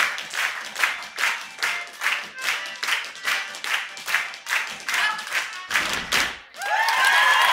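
Audience clapping in time with the dance music, about two and a half claps a second, with faint music behind it. A low thump comes just before six seconds in, and at six and a half seconds the crowd breaks into loud cheering, whooping and applause.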